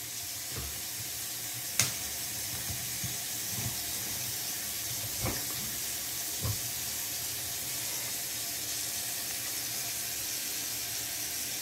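Steady hiss, strongest in the high range, with a sharp click about two seconds in and a few soft knocks later, as a plug-in receptacle tester and a pulled-out wall outlet are handled.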